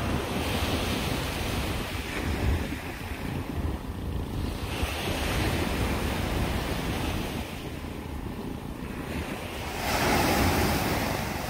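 Small sea waves breaking and washing up a sand beach, surging three times with the last surge the loudest, over a low rumble of wind on the microphone.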